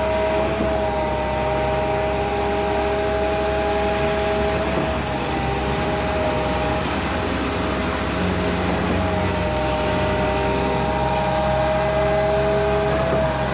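Concrete-pouring machinery running steadily under load. A constant low drone carries several steady whining tones that shift slightly in pitch now and then.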